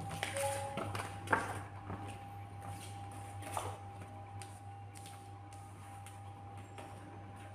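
A few light clicks and taps, the loudest about a second and a half in, over a steady low hum and a faint steady tone.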